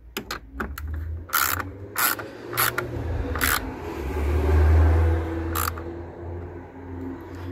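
Ratchet handle on an extension clicking as it tightens a 13mm battery-bracket bolt: a few sharp bursts of ratchet clicks spread over the strokes, over a low rumble that peaks about halfway through.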